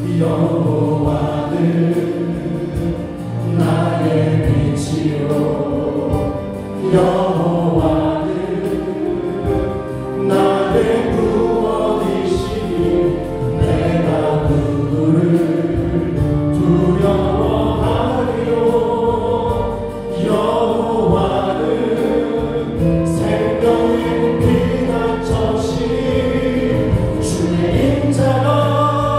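Gospel worship song: a group of voices singing together over a live band of electronic keyboard, bass guitar and drums.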